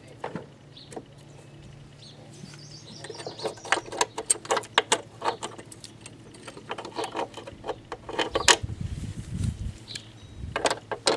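Irregular clinks and knocks of hand tools and metal parts being handled during work on a lawn mower engine, busiest in the middle, with a low rumbling scrape a little after that.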